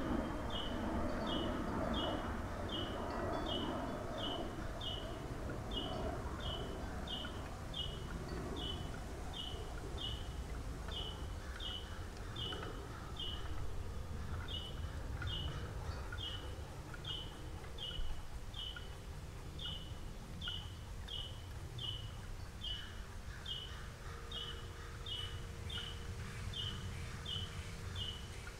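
A bird calling one short note over and over at a steady pace, roughly twice a second, over a steady low background rumble.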